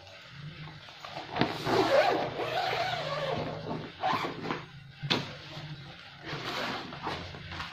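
Handling of a padded nylon keyboard gig bag: fabric rustling and scraping, with a sharp knock about a second and a half in and another about five seconds in. Near the end a zip on the bag's front pocket is pulled open.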